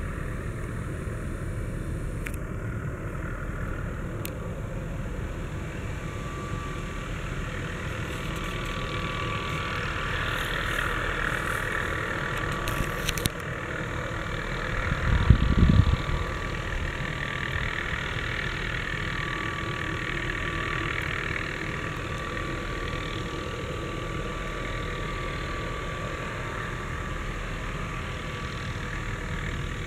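MD 520N NOTAR helicopter hovering at a distance, its turboshaft engine and rotor giving a steady whine and rumble. A brief low thump comes a little past halfway.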